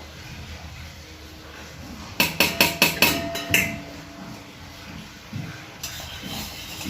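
A quick run of about seven sharp knocks over about a second and a half, each with a faint ring.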